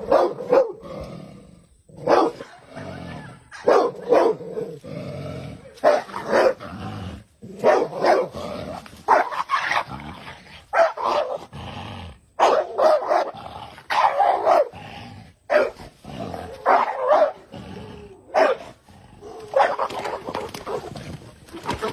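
A dog barking repeatedly, about one bark a second, sometimes two in quick succession.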